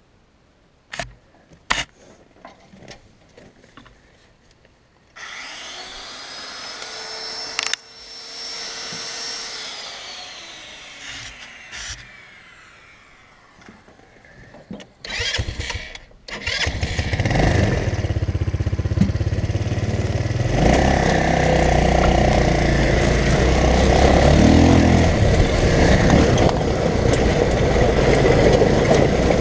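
Off-road go-kart engine being started: a few clicks, then a whine that rises and falls in pitch for several seconds, before the engine catches about sixteen seconds in and runs, growing louder again a few seconds later.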